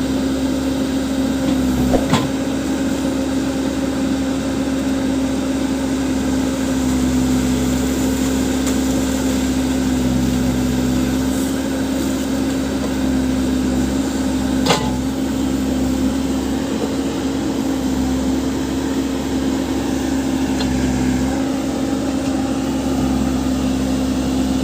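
Case backhoe loader's diesel engine running steadily with a constant hum, with a sharp knock about two seconds in and another about two-thirds of the way through.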